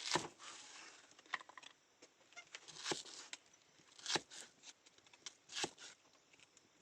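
Knife chopping on a cutting board: five sharp knocks spaced about a second or more apart, with faint rustling in between.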